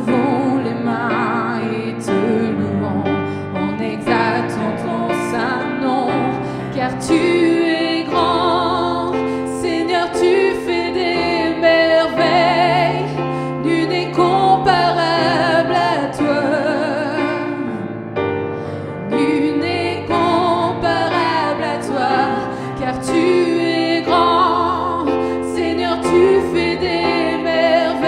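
Two women singing a gospel worship song as a duet over keyboard accompaniment, with long wavering held notes.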